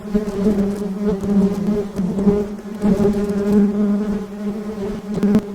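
Honey bees buzzing: a steady, unbroken wingbeat hum.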